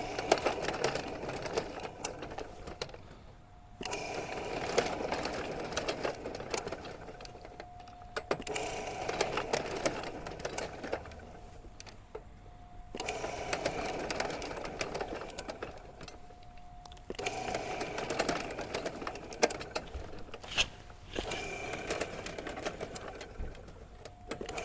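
Electric drain snake's motor and spinning cable whirring and rattling in runs of about four seconds, cutting out briefly and starting again about five times: the machine runs only while its pneumatic foot pedal is pumped, and it is not holding the motor on well.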